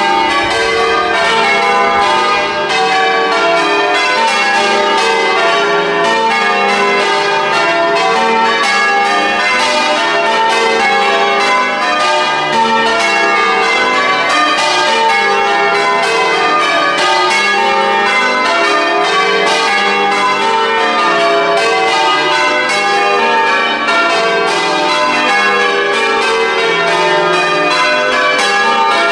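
Church tower bells change ringing: a steady, rapid succession of bell strokes, the bells sounding one after another in turn without a break.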